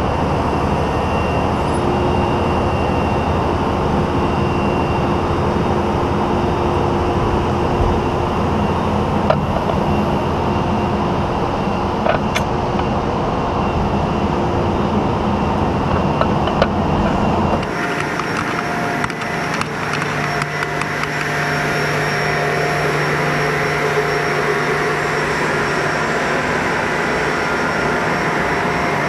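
Crane truck's engine and hydraulics running steadily with a held hum. About two-thirds of the way through, the note changes abruptly and the low rumble drops away.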